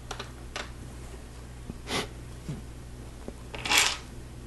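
Plastic Lego pieces clicking and rattling as they are handled, with a few light clicks early on. Near the end comes a louder, brief rattle of loose bricks being raked across the table.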